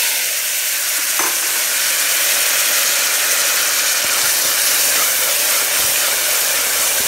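Chopped onion and tomato sizzling in hot sunflower oil in an aluminium pressure cooker, a loud steady hiss, with a single light clink about a second in.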